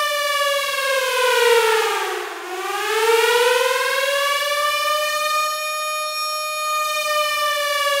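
Air-raid siren wailing, a single tone with many overtones. It falls to its lowest pitch about two seconds in, climbs back up and holds high, then starts to fall again near the end.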